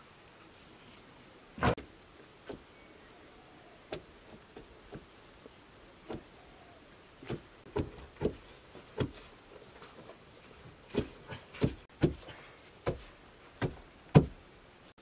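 A hand tool knocking and chopping into a packed earthen floor: irregular sharp knocks, a few scattered at first, then coming faster, about one to two a second, from about seven seconds in.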